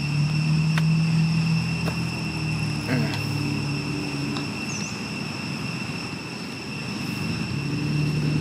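A motor vehicle engine hums nearby, strong at first, fading in the middle and coming back near the end, over a steady high-pitched insect drone. A few faint clicks.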